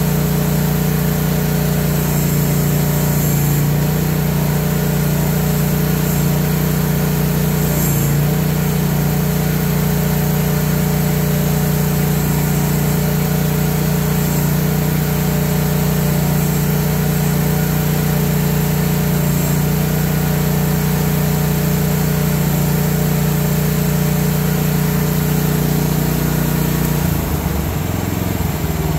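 Briggs & Stratton 13.5 XR single-cylinder engine of a 1-ton QH12 mini excavator running steadily. About two seconds before the end its note drops as the throttle is turned down.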